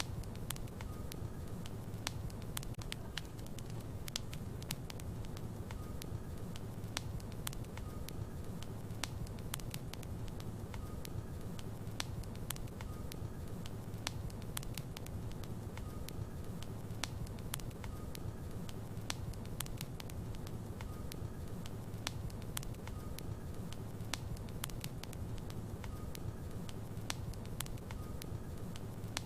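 Wood logs burning in a fireplace: a steady low rumble of the flames with frequent sharp crackles and pops from the wood.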